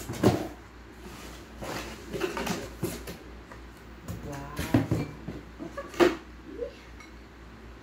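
Knocks and clinks of an amber glass cooking pot and its cardboard box and insert being handled as the pot is unpacked. The sharpest knocks come about a quarter second in and about six seconds in.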